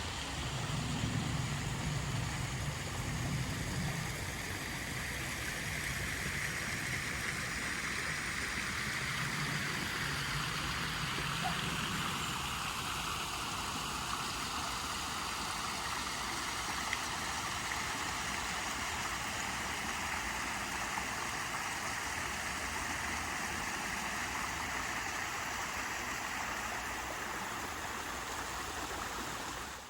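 Water rushing and splashing steadily, with no pauses.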